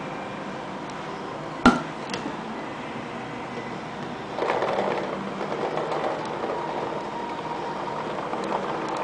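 Paintballs poured from a plastic pod into a Virtue Vlocity Jr. electronic hopper, rattling and clattering against the shell and each other from about four seconds in and continuing. Earlier, near two seconds in, a single sharp snap as the pod's lid pops open.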